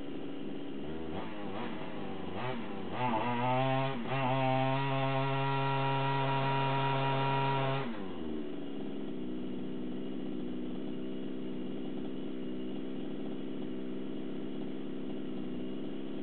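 Two-stroke engine of a Redcat Rampage XT gas RC truck idling, then blipped up and down a few times. It is held at high revs for about four seconds while the wheels spin in the dirt against a bucket, then drops back to a steady idle.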